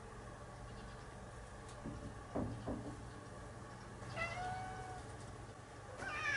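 Domestic cat meowing: one drawn-out meow about four seconds in, held at a steady pitch, then a louder, higher meow near the end that falls in pitch. About two and a half seconds in there is a brief low sound.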